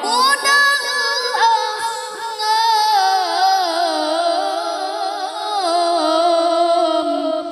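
A boy's voice reciting the Qur'an in the melodic tilawah style into a microphone, drawing out one long, ornamented phrase that wavers and slowly falls in pitch, starting to fade near the end.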